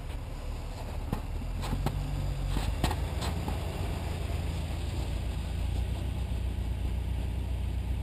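Jeep Wrangler's engine running low and steady as the Jeep crawls up a steep snow bank, its hum growing stronger after about five seconds. Several sharp knocks and clicks come in the first three or four seconds.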